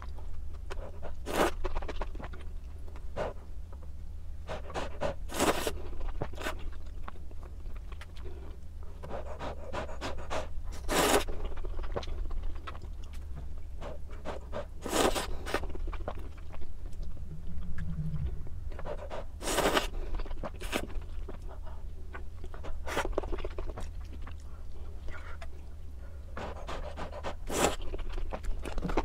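A person eating ramen: noodles slurped in short, sharp bursts every few seconds, with chewing in between, over a steady low hum.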